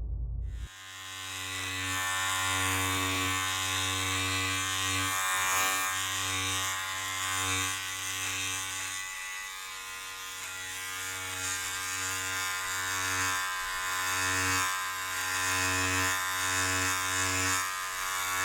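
Steady electric buzzing with a low hum and many overtones, swelling and fading in level as the source moves, recorded binaurally with in-ear microphones.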